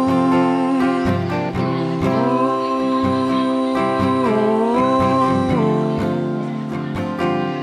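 Live solo performance: a man singing long held notes while strumming an acoustic guitar. The voice breaks off about a second in, comes back, and drops out for the last couple of seconds, leaving the guitar.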